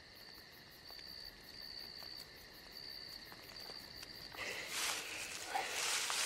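Night-time chorus of crickets: a steady high trill over a lower steady tone. About four seconds in, rustling noise comes in over it in short bursts.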